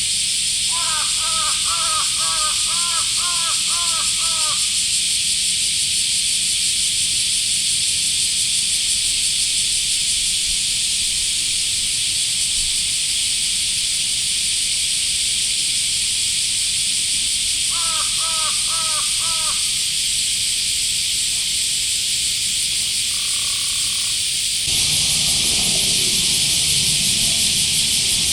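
Steady, loud chorus of summer cicadas, with a crow cawing in a quick run of calls near the start and a shorter run of about four caws around two-thirds of the way through. Near the end the background changes suddenly and a low rumbling noise joins the cicadas.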